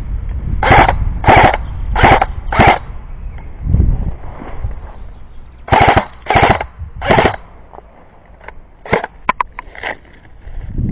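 Airsoft guns firing in short bursts: four quick bursts in the first three seconds and three more about halfway through, then a few fainter scattered shots.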